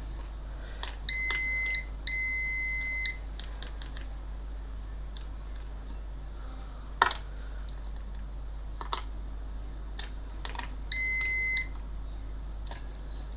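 Multimeter continuity beeper sounding as the probes touch the output MOSFET's pins: two beeps of about a second near the start and another near the end, each one signalling a short between gate and drain. Short clicks of the probe tips on the board come in between.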